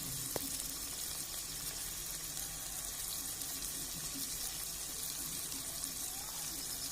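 Steady sizzling of an onion-tomato masala frying in oil in a pan.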